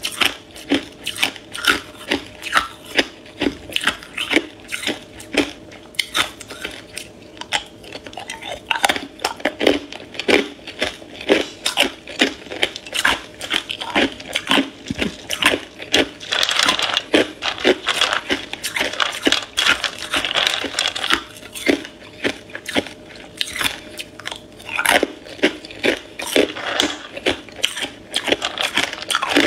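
Hard ice cubes being bitten and crunched between the teeth, close to the microphone: a steady run of sharp cracks and crunches, two or three a second, with a denser stretch of crunching in the middle.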